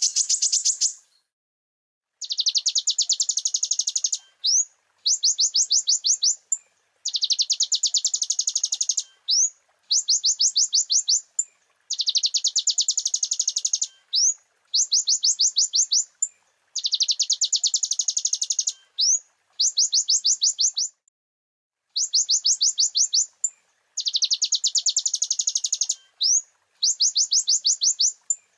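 Kolibri ninja (purple-throated sunbird) singing: high, very fast trills in bursts of one to two seconds, each broken by a brief pause or a single quick upswept note, repeated over and over.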